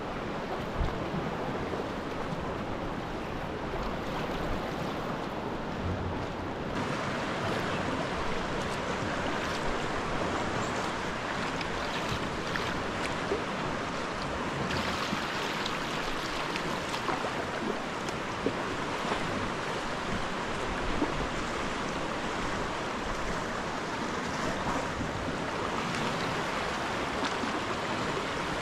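Sea water washing and lapping over rocks around a sea kayak: a steady hiss of moving water that gets louder and brighter about seven seconds in.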